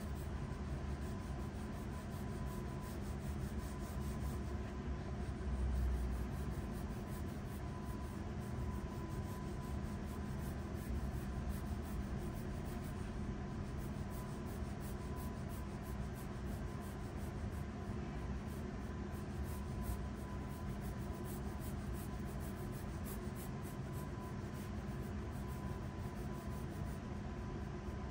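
Graphite pencil scratching lightly across paper in long sketching strokes, over a steady background hum.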